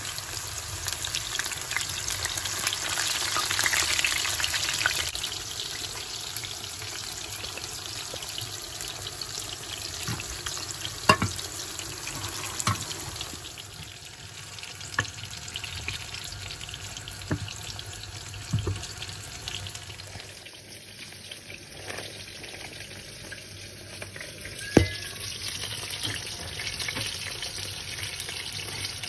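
Food frying in hot oil in a pan, a steady sizzle, with a few sharp knocks from a utensil against the pan.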